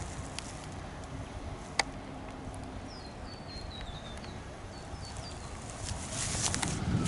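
Outdoor background with a single sharp click about two seconds in, and a bird calling a quick falling series of short high chirps in the middle. Footsteps and scuffing grow louder near the end.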